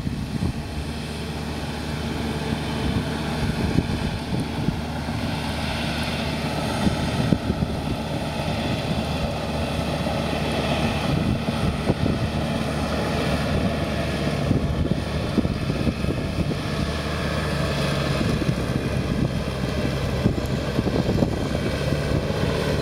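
Komatsu crawler dozer's diesel engine running steadily under load while pushing ash and burnt debris.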